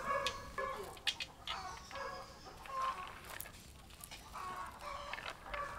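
Hens clucking in short, scattered calls, with two sharp clicks about a second and about three seconds in.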